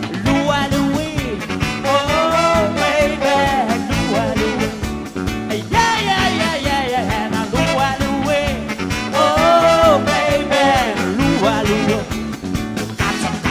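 Live band playing a song: a lead melody line over a rhythm section.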